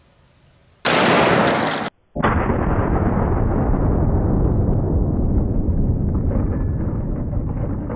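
A single shot from a CZ 550 bolt-action rifle in .375 H&H Magnum about a second in, its blast cut off short after about a second. It is followed by a long, deep, slowed-down boom that fades only slowly.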